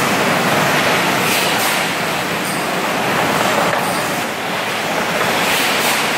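Automatic bottle washing and filling line running: a steady, loud rush of noise from its high-pressure (80 bar) bottle-washing system and machinery, with a few short, faint higher hisses.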